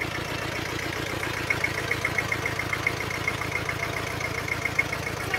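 Iseki TS1910 compact tractor's diesel engine running at low speed, a steady, fast pulsing chug as it pulls a light trailer.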